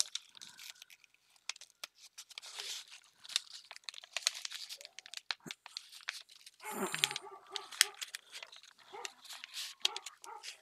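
Crinkling and rustling of plastic pockets and paper as small embellishments are handled and pushed into a book's pockets, with many small clicks and taps. About seven seconds in comes a brief pitched vocal sound.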